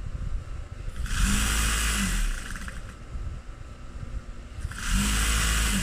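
Juki industrial high-speed sewing machine stitching in two short bursts of about a second each, about a second in and again near the end. Its motor speeds up at the start of each burst and winds down at the end, as the treadle controls the speed.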